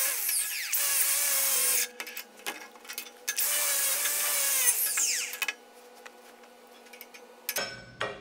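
Angle grinder with a spinning wheel working over the welds on a piece of galvanized steel grating, in three bursts, each ending with the motor's whine falling away as it is let off.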